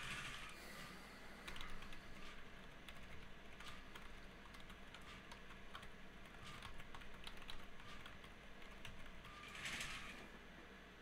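Computer keyboard typing: irregular, fairly quiet key clicks, with a short hiss near the start and another near the end.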